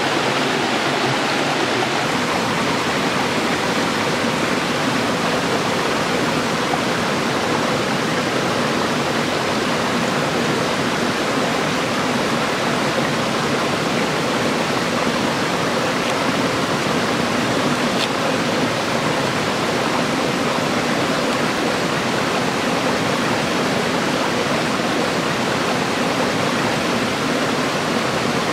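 Steady rush of running stream water, even and unbroken.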